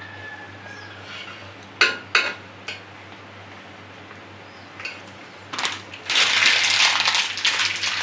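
A few sharp clinks of a steel ladle against a metal pot, then, from about five and a half seconds in, a loud continuous scraping and clinking as the ladle stirs thick semolina halwa in the pot.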